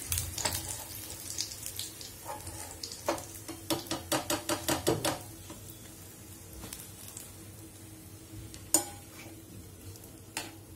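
Oyster fritters deep-frying in hot oil, a steady soft sizzle, with a quick run of light metallic clicks from a perforated steel skimmer against the pan around the middle and a sharper single knock near the end.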